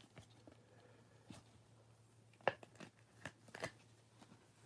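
Trading cards being handled by gloved hands and set down on a stack: a few light clicks and taps of card stock, the sharpest about halfway through, over a faint steady low hum.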